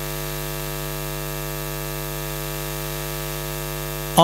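Steady electrical mains hum: a buzzing stack of evenly spaced tones, with a faint high-pitched whine above it.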